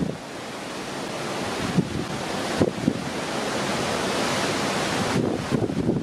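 Rough sea churning and rushing alongside a ship's hull, a steady rushing that slowly grows louder. Wind buffets the microphone in brief low thumps now and then.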